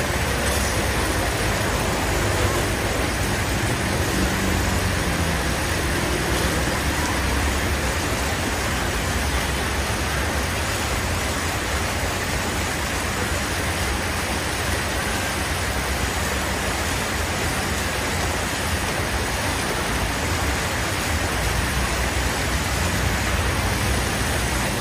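Steady road traffic noise, vehicle engines and an even hiss with no single event standing out.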